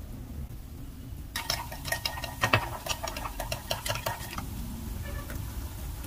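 A metal spoon stirring in a glass mug, clinking rapidly against the glass for about three seconds. The clinks start about a second in.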